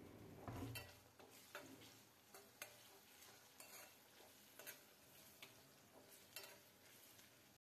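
Faint, occasional clicks and scrapes of a steel spoon stirring onions, tomatoes and spices in a steel kadhai, over a faint sizzle of the frying.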